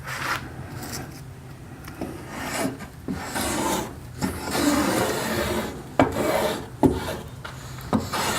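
A hand-tool blade shaving a wooden paddle shaft in repeated strokes, a rasping scrape on each pass, with a few sharp clicks in the second half.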